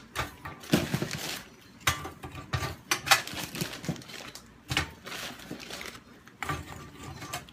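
Frozen chicken drumettes being placed and dropped into a metal air fryer basket and rack: irregular hard clacks and clatter, some with a short metallic ring, as the frozen pieces knock against the metal and each other.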